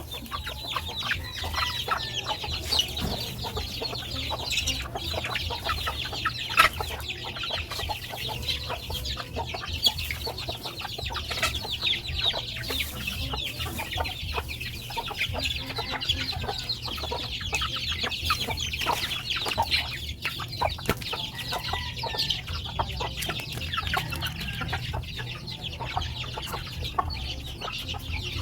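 A flock of native chickens clucking, with a dense, continuous chorus of short high-pitched peeps and chirps over a low steady hum.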